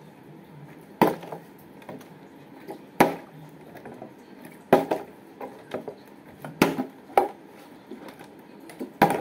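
Water-filled Bisleri plastic bottle being flipped and landing on the floor again and again: a series of sharp knocks, about seven, one to two seconds apart.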